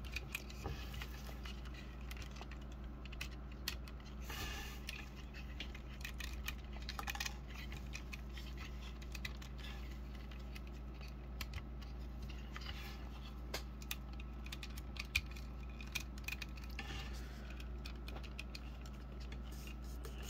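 Small plastic clicks, taps and light rubbing as a plastic action figure and its plastic toy motorcycle are handled, with the figure's hands being worked onto the handlebars. A steady low hum runs underneath.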